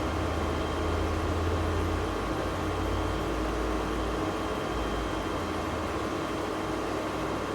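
Steady background hum and hiss with a low rumble that eases off about two seconds in; no distinct events.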